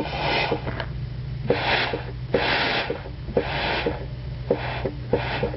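Compressed air hissing from an air blow gun in about six short puffs, its trigger barely touched, feeding low pressure through a hose into a turbo wastegate actuator to test whether it opens. A steady low hum runs underneath.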